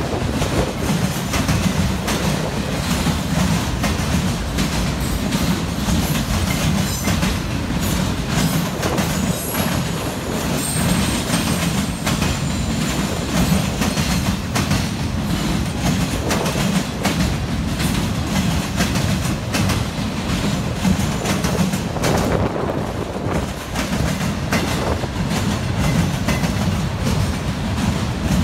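Northbound Norfolk Southern auto rack freight train rolling past close by, its steel wheels clattering steadily over the rail joints and the diamond crossing over a low rumble. A faint high wheel squeal comes in about ten seconds in.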